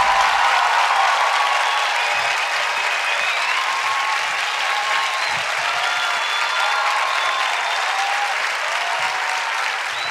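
Studio audience applauding and cheering steadily, with the intro music's bass dying away in the first second.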